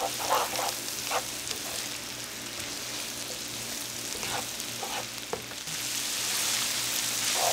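Ground sausage, sliced mushrooms and garlic sizzling in a skillet while a spatula stirs and scrapes them around the pan, with a few separate scraping strokes. The sizzle grows louder about six seconds in.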